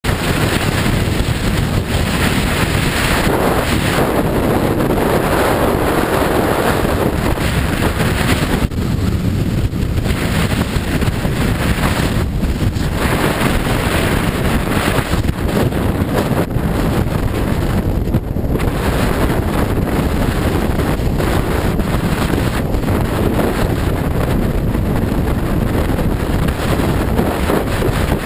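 Loud, steady wind noise buffeting the microphone of a skier's body-worn action camera during a downhill run, easing briefly a few times.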